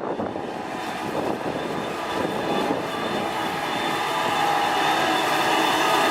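Heavy road-construction machine running, its diesel engine getting louder, with a steady whine coming in about halfway through.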